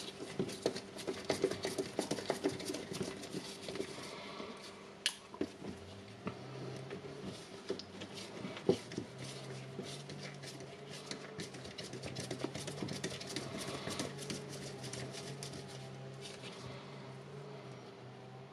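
Small clicks and taps of screws being backed out of a Milwaukee M18 mid impact wrench's housing and its parts being handled, with a sharper click about 5 seconds in and another near 9 seconds. A faint steady hum sits underneath.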